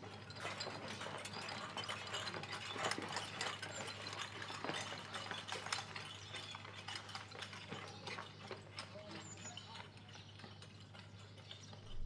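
Soldiers' boots on dirt and the clinking of their gear and horse tack as they move about: many small, irregular clicks and knocks over a steady low hum.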